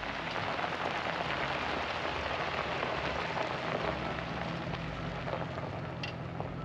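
Tyres of a pickup truck carrying a camper crunching slowly over a gravel driveway as it passes close by, a dense steady crackle over the low hum of its engine.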